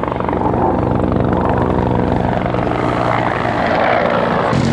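Bell 412 helicopter flying, its rotor and turbine engines making a loud, steady drone with a fast, even pulsing that swells slightly near the end.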